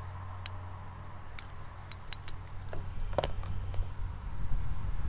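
A few light metallic clicks and taps as a pick and small screwdriver work at a carburetor's float and float pin, over a steady low hum; a low rumble builds after about three seconds.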